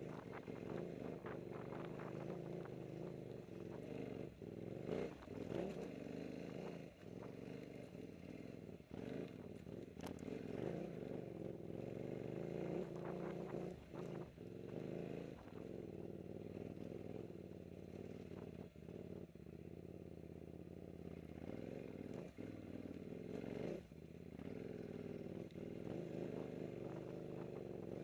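KTM 950 Super Enduro's 942 cc V-twin engine running as the bike climbs rough singletrack, its level rising and falling with the throttle and easing for a few seconds past the middle. Frequent knocks and rattles as the bike jolts over the trail.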